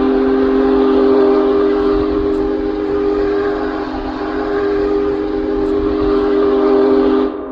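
Arena goal horn, a train horn, sounding one long, steady chord of several notes that cuts off suddenly just before the end. It is the signal of a home-team goal.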